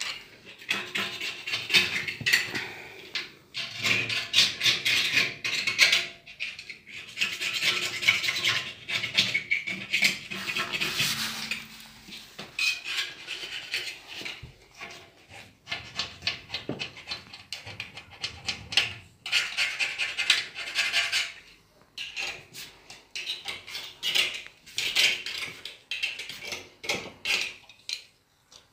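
Metal scraping and clinking inside a Burnit pellet stove as it is cleaned out: irregular strokes of a tool against metal, with clatter and short pauses between bouts.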